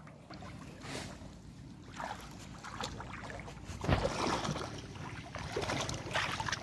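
Shallow water sloshing and splashing in irregular bursts, the loudest about four seconds in.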